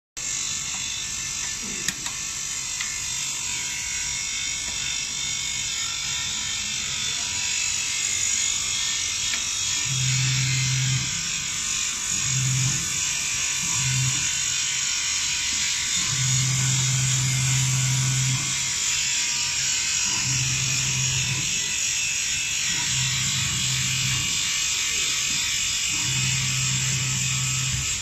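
Mini enclosed fiber laser marking machine running with a steady high hiss, while the motor of its electric door hums low in several stretches of up to two seconds as the door is driven open and shut.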